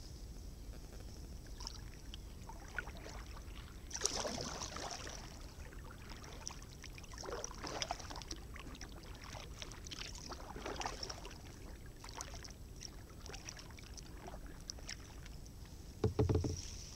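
Kayak paddle strokes splashing in the water a few seconds apart, with small clicks between them and a short low thump near the end.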